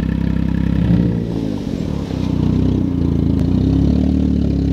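A car engine running just after start-up: its pitch drops about a second in, then it idles steadily.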